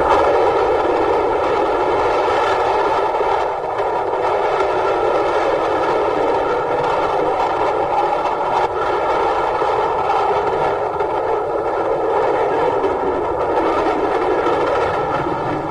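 Steady running rattle of a wheeled sled going down a wooden amusement-park slide track, starting abruptly and cutting off suddenly.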